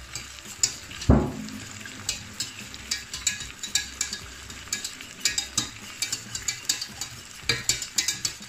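Wire whisk clicking against the sides of a stainless steel saucepan as a sauce is whisked, several quick clicks a second, with steak sizzling in a frying pan alongside. A single dull knock about a second in.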